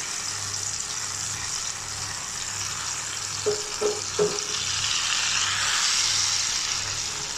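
Wet blended raw-mango, onion and tomato chutney sizzling in hot oil in an aluminium pan as it is stirred with a wooden spatula: the moisture in the paste frying off. The sizzle grows louder about two-thirds of the way through, and there are three short knocks a little past halfway.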